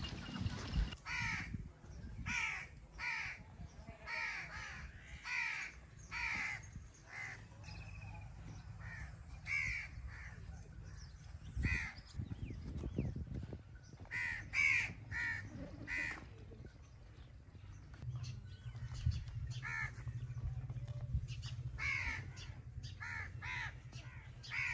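Crows cawing repeatedly, short harsh calls coming in runs of several at a time, over a low steady hum.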